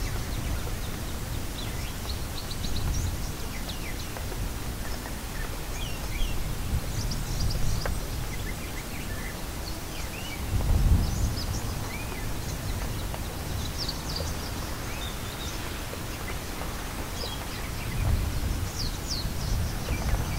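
Ambient nature soundscape: birds chirping over a steady background hiss, with low rumbling swells, the loudest about 11 seconds in.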